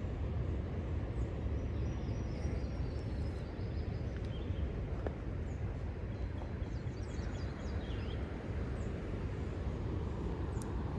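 Steady low roar of water pouring through the open spillway gates of Table Rock Dam, with birds chirping now and then.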